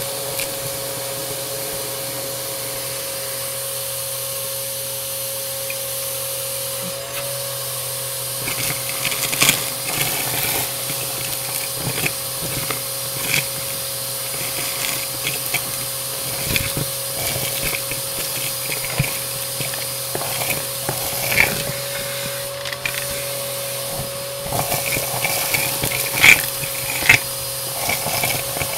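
Bissell AeroSwift vacuum cleaner running with a steady motor whine. From about eight seconds in, irregular crunching crackles and ticks come as debris is sucked up.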